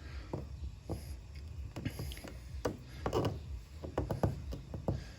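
Hands rubbing and pressing a clear protective film onto a car's front marker light lens, in a series of short rubbing strokes and light taps over a steady low hum.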